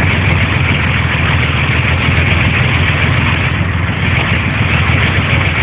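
A vehicle engine running steadily: a constant low hum under a heavy, even noise.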